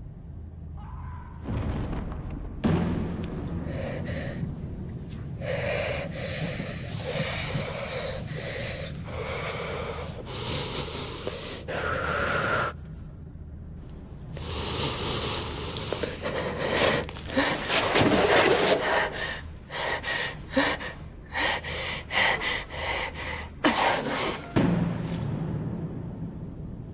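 A woman's heavy, strained breathing and gasps of effort. They come in broken bursts that grow quicker and louder over the second half, over a low steady hum.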